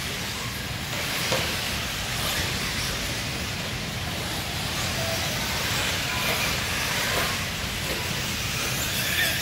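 Nitro RC truggies' small glow engines running at high revs around a dirt track, merging into a steady, loud hiss that carries through a large indoor hall.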